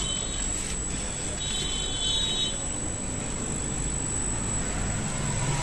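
Steady low rumble and hum of background machinery with a thin high-pitched whine running through it, and a faint high tone sounding briefly about a second and a half in.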